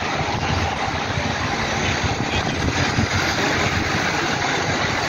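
City street ambience: road traffic running past, with wind rumbling on the microphone.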